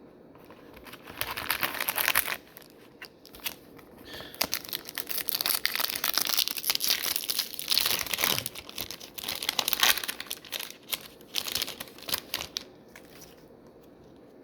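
A foil trading-card pack wrapper being torn open and crinkled, in uneven rustling bursts: a short one about a second in, then a longer stretch from about four seconds in until near the end.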